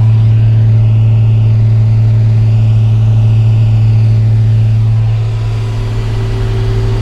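Large farm tractor's diesel engine running steadily with a deep, even drone, easing slightly about five seconds in.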